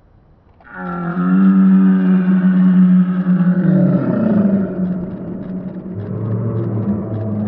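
Loud, long held yelling from a man's voice during a heavy barbell snatch, starting just under a second in as the lift begins. Its pitch drops about halfway through, and lower held shouting carries on through the catch in the overhead squat.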